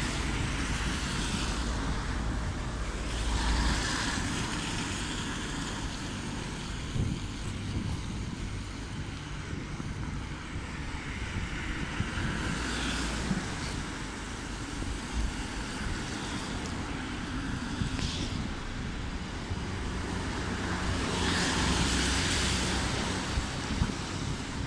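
Traffic on a rain-wet street: cars passing with their tyres hissing on the wet asphalt, swelling and fading several times, over a steady rumble of wind on the microphone.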